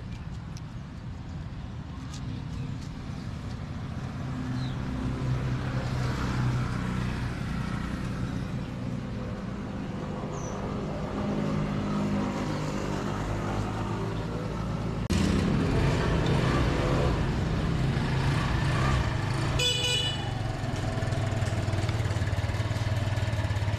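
New motor scooter's small engine running at idle, with one short horn toot just before twenty seconds in, as the bike is checked over.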